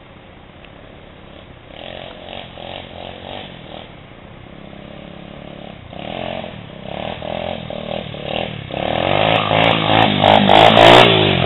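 125 cc dirt bike engine approaching, revving in uneven bursts and growing louder. It is loudest near the end, as the bike comes up the trail under throttle.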